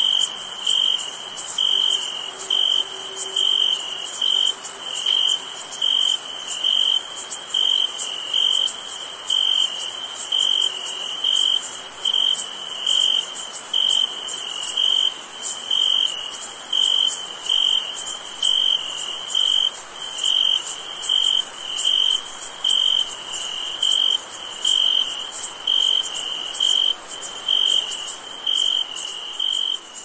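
Summer night insect chorus. A cricket chirps in a steady rhythm of about two chirps a second over a continuous high-pitched shimmering hiss of other insects. The sound thins and grows quieter near the end.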